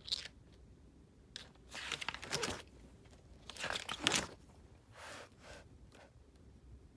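Paper pages of a spiral-bound book being turned, rustling in several short bursts.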